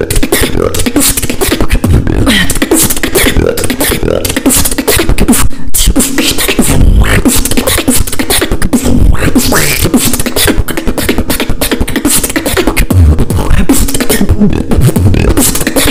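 Solo beatboxing in a battle round: a fast, dense rhythm of vocal kick drums, snares and hi-hat clicks made with the mouth, over held hummed tones.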